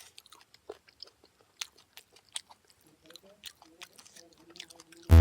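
Close-up chewing and mouth smacking while eating, heard as irregular soft clicks and crunches. Loud electronic music cuts in at the very end.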